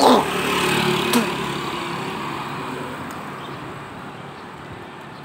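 A motor vehicle passing close by: loud at first with a falling pitch, then fading steadily over a few seconds as it moves off down the street. A sharp click comes about a second in.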